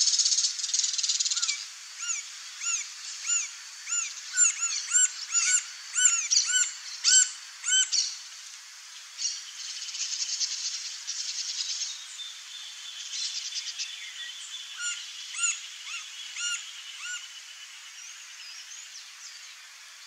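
Bird calls: a run of short, arched notes repeated about every half second, with loud bursts of buzzy, raspy hissing at the start and again around ten seconds in.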